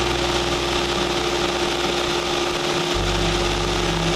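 Cessna 172's piston engine and propeller droning steadily in flight, with one strong steady hum over a wide rush of air, heard from inside the cockpit.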